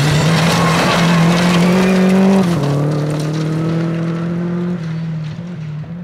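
Subaru Impreza rally car's flat-four engine revving hard through a gravel corner, its pitch climbing, dropping at an upshift about two and a half seconds in, then pulling again and easing off near the end. Loose gravel sprays from the tyres in the first couple of seconds.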